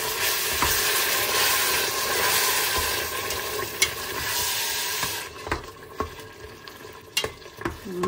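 Beef and onions sizzling in a pot while being stirred, with strained tomatoes just added. The sizzle dies down about five seconds in, and a few sharp knocks follow.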